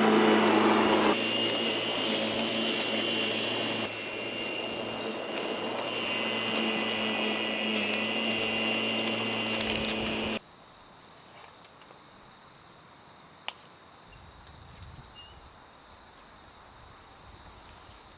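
Ozito electric lawn mower running at full speed, a steady motor whine and hum. It stops abruptly about ten seconds in, leaving only faint background with a single click.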